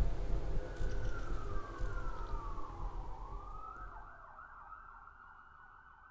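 Emergency vehicle siren in the distance, first a slow falling and rising wail, then a fast warbling yelp about halfway through, over a low city rumble, the whole fading out.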